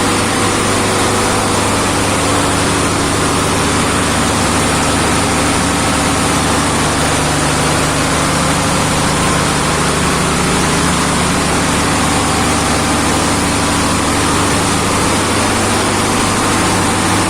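Cargo pump machinery running steadily: a loud, even machine drone with a steady low hum.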